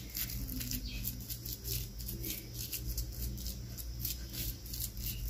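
A spoon working moist ground beef and potato filling in a metal cake pan: soft, irregular little clicks and squishes, over a faint steady low hum.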